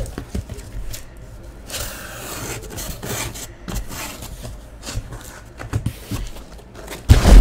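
Cardboard hobby boxes rubbing and scraping against one another and against the cardboard case as they are handled, with scattered light knocks. A heavy thump near the end is the loudest sound.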